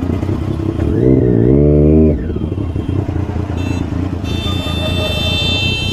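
Triumph Daytona 675's three-cylinder engine running in slow traffic, with a brief rev about a second in that climbs for a second and then cuts off. A high steady tone joins near the end.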